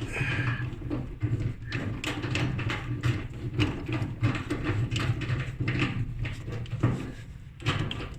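A screw being driven into the Kenmore dryer's idler pulley mount and tightened by hand, heard as a string of small clicks, knocks and scrapes over a steady low hum.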